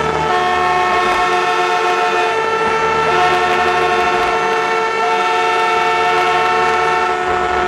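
Many spectators' horns blown together over crowd noise, several long held notes at different pitches overlapping and breaking off every couple of seconds, greeting a guest's arrival on stage.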